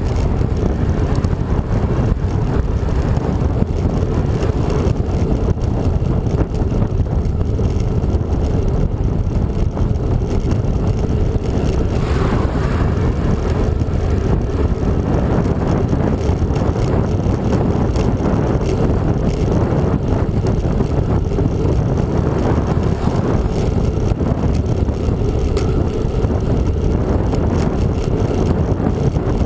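Wind buffeting the microphone of a handlebar-mounted camera on a moving bicycle: a steady low rumble.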